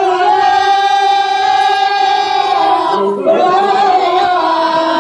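Amplified singing in a Telugu folk-drama song: a voice holds one long note for about three seconds, then moves into a second long note.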